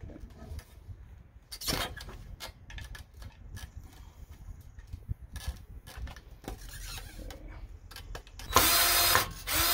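DeWalt DCD771 cordless drill/driver driving a screw through a metal gate bracket into a wooden rail: a short burst about two seconds in, scattered clicks of handling, then a steady run of just under a second near the end, the loudest part.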